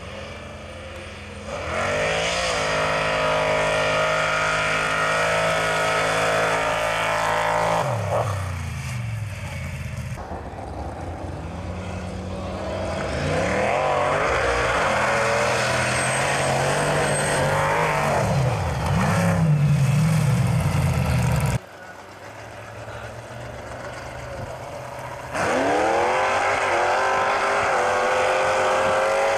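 Mud drag racing engines revving hard at full throttle over several separate runs. Each one rises in pitch as it launches, holds high, then falls away as the throttle comes off, with abrupt cuts between runs.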